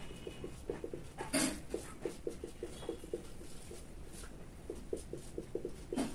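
Whiteboard marker writing an equation, giving short squeaks and taps several times a second as each stroke is drawn.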